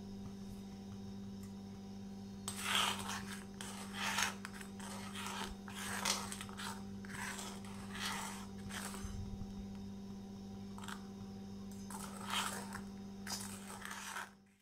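A metal spoon stirring and scraping the inside of a steel pot of simmering herbal liquid. It gives a run of irregular scrapes that start about two and a half seconds in.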